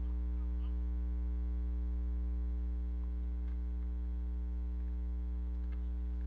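Steady electrical mains hum with a row of evenly spaced overtones, unchanging throughout.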